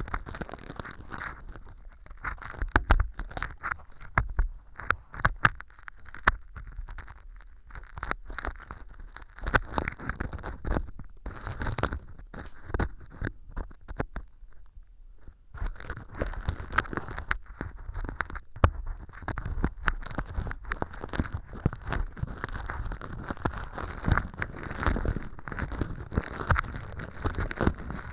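Stainless steel ear pick scraping and picking at fake earwax of styrofoam powder and sawdust in an ear-canal model, making dense, irregular crackles and crunchy clicks. It goes quieter for a couple of seconds a little past the middle.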